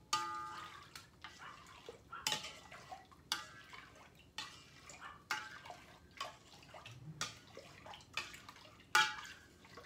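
Juice being stirred in a stainless steel bowl: a utensil knocks against the metal sides about once a second, each knock ringing briefly, with liquid sloshing between.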